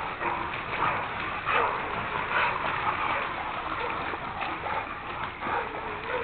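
Hunting dogs barking at a bayed hog, brief calls a few times, over footsteps crashing through wet brush.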